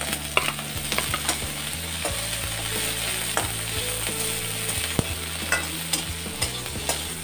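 Chopped onion, tomato and green chilli sizzling in hot oil in a metal kadai, stirred with a wooden spatula that clicks and scrapes against the pan now and then.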